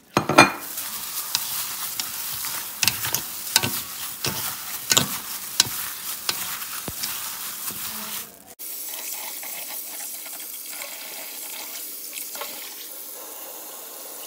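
Gloved hand mixing seasoned raw chicken tenders in a metal bowl: wet squishing with many sharp clicks and knocks against the bowl. About eight and a half seconds in it changes abruptly to a steady rush of tap water running into a bowl of basmati rice as the rice is washed.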